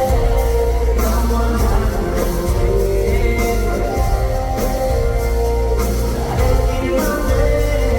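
Live concert music over the PA: a song playing loud, with heavy bass, sustained chords and a steady beat.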